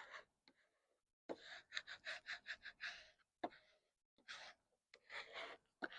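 Faint scraping of a plastic squeegee rubbed over transfer tape to press a vinyl decal onto a car window: a quick run of short strokes, about four a second, then a few single strokes.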